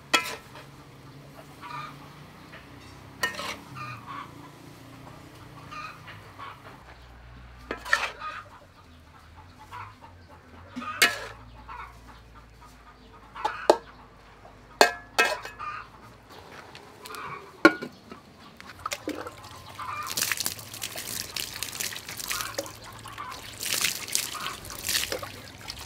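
A metal spatula clanks and scrapes against a steel wok every few seconds while oyster mushrooms are stir-fried, with chickens clucking in the background. About 20 seconds in, water pours and splashes from a plastic bowl over spring onions being rinsed by hand.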